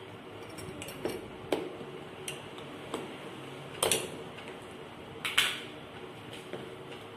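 Spoon, plastic ice-cream tub and lid clinking and knocking against a bowl of chopped fruit: a string of separate clicks and clacks, the loudest a pair near four seconds in and another about five and a half seconds in.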